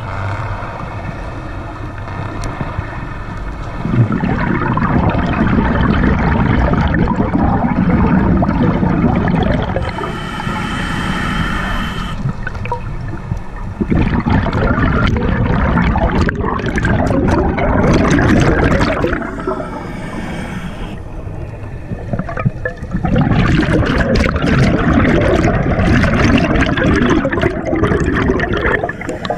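Scuba diver breathing through a regulator underwater: three long bursts of exhaled bubbles, each several seconds, separated by quieter inhalations with a faint hiss from the regulator.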